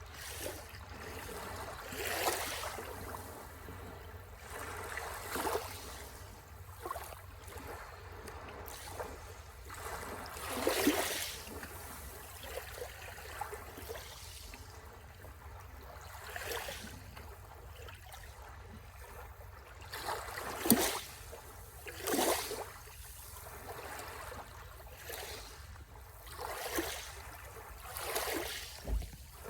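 Small sea waves lapping and splashing at the shore in irregular washes every second or two, over a steady low rumble.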